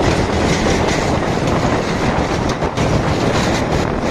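Steady road noise at about 50 km/h: wind rushing over a microphone on a Hero Splendor Pro motorcycle, with the motorcycle's engine and a Sonalika 35 tractor's diesel engine running at top speed close alongside.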